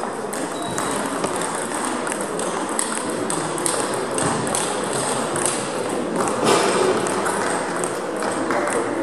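Table tennis balls clicking off bats and tables in irregular, overlapping clicks from more than one table in play, over a steady background noise.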